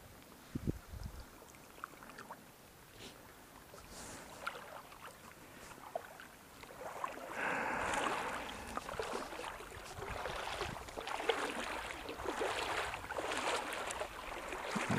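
Water splashing and sloshing around the legs of someone wading a shallow river, louder and busier from about halfway through, with a couple of dull thumps about a second in and scattered small knocks.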